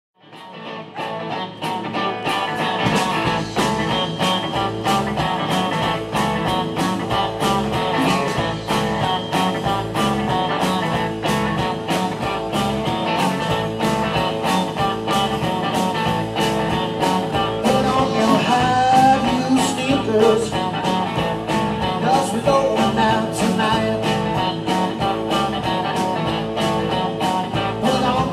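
Live rock and roll band playing: electric guitars, bass guitar and drum kit over a steady beat. It fades in over the first second or two.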